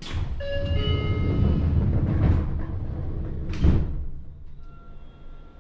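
Sliding doors of a Seibu 9000 series commuter train closing, heard from inside the car: a rumble of the door panels moving, with knocks and a final sharp thud as they shut about three and a half seconds in.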